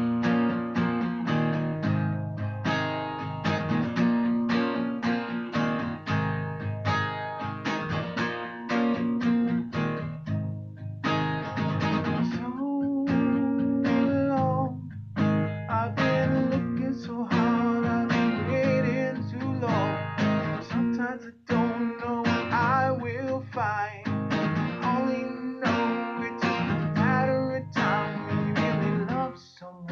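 Steel-string acoustic guitar strummed in a steady rhythm, with a man singing along.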